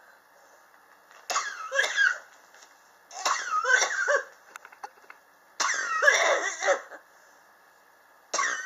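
A person coughing in bouts roughly two and a half seconds apart, each about a second long, the last starting near the end. This is the chronic cough that has gone on for about three years.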